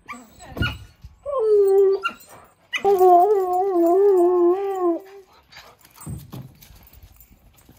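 A husky-malamute cross 'talking': drawn-out, howl-like vocalisations whose pitch wavers up and down. There is a short call about a second in, then a longer one of about two seconds starting near the three-second mark.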